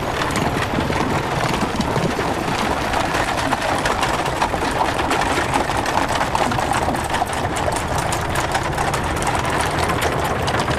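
Horses moving at speed with a wooden cart rolling behind them: a steady clatter of hooves and rattling wheels, thick with fast clicks.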